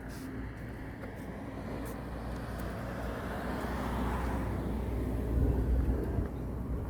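A car passing on the village street, its tyre and engine noise swelling steadily to a peak about four to five seconds in, with a low rumble.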